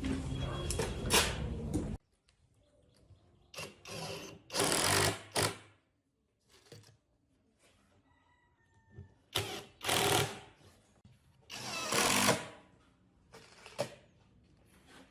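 A steady mixed noise cuts off abruptly about two seconds in. It is followed by a power tool, drill-like, run in short bursts of half a second to a second with silent gaps between, about eight bursts in all.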